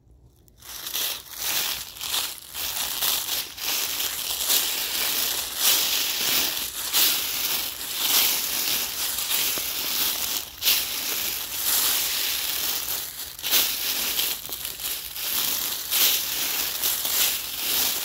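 Boots walking through a thick layer of dry fallen leaves, crunching and crackling with each step, starting about half a second in.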